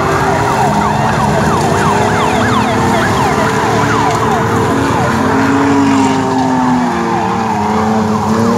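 Off-road 4x4 trucks racing through a mud pit, engines running hard with their pitch shifting as they rev, one climbing about two-thirds of the way through. Over them comes a stream of short falling whistle-like tones, several a second, which thins out in the second half.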